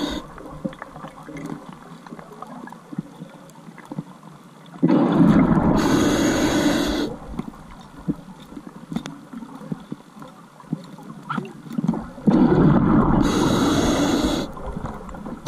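Scuba diver breathing underwater through a regulator: two long rushes of exhaled bubbles, about seven seconds apart, with faint clicks and crackles between the breaths.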